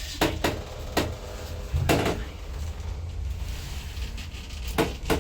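Slow-closing doors of an old Oakland hydraulic passenger lift: a handful of separate clunks and knocks from the door and lift mechanism over a steady low hum.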